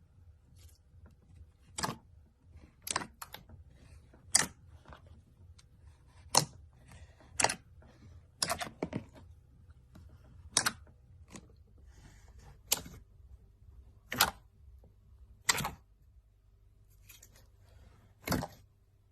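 Slime being worked by hand, giving sharp popping clicks one every second or two, about a dozen in all.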